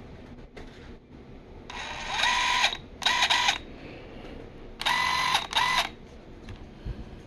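DeWalt DCF894 cordless impact wrench spinning freely in four short trigger pulls, in two pairs, its motor whining up to speed each time. It is running off a Bauer 20V battery through an adapter, showing that the adapter works.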